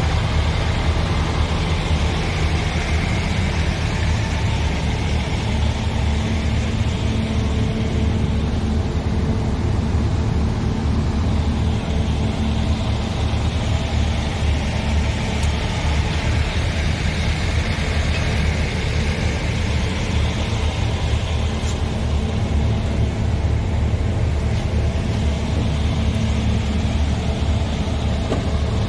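Scania R500 truck's six-cylinder diesel engine idling steadily.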